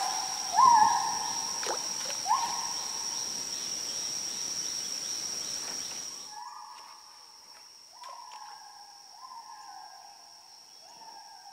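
Gibbons calling: repeated whooping notes, each rising then falling, over a steady high insect drone. After about six seconds the calls are fainter and each note is drawn out longer.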